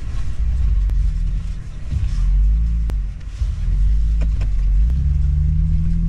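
Toyota truck engine running and revving up and down as the truck maneuvers, heard from inside the cabin as a low rumble.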